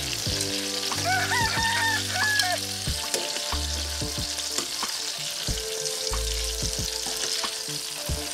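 Chicken thighs sizzling in hot fat in a frying pan, with scattered clicks of metal tongs as the pieces are lifted out.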